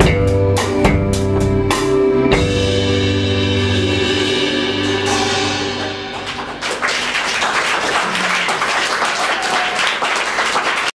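Live band with drum kit and bass guitar playing its closing bars: drum hits, then a final chord ringing out under a cymbal wash. Audience applause follows, starting about six seconds in.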